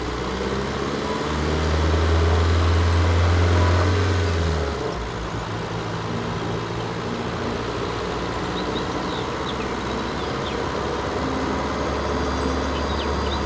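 Background music: deep, sustained synth bass notes that shift pitch every few seconds, with a few faint clicks late on.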